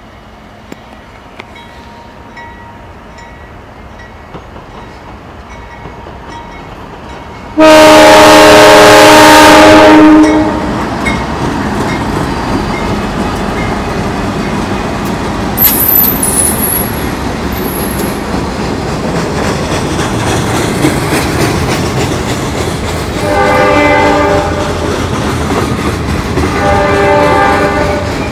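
Norfolk Southern freight train approaching, its diesel locomotive sounding a very loud horn blast of about two and a half seconds, about eight seconds in. Then the locomotive and the freight cars roll past close by with a steady rumble of wheels on rail, a brief high wheel squeal, and two fainter horn soundings near the end.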